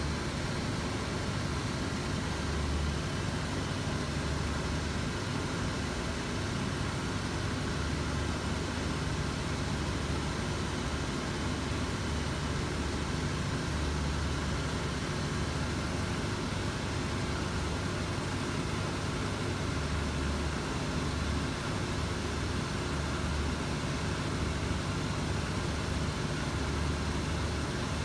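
Shoe repair finishing machine running steadily, its motor-driven shaft of sanding and buffing wheels giving a low, even hum.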